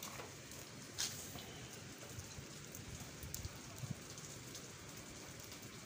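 Rain falling on a wet street: a faint, steady hiss of drops, with one sharper tap about a second in.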